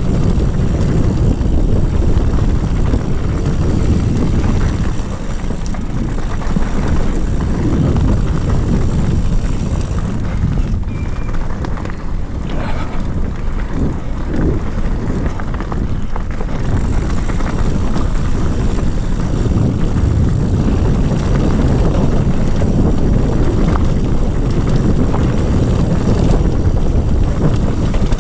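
Mountain bike riding fast down a dirt trail: a steady rush of wind on the microphone over the rumble of tyres on the dirt, with occasional knocks from the bike over bumps.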